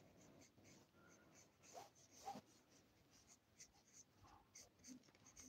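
Very faint pencil scratching on drawing paper while a portrait outline is sketched: short, light strokes in near silence.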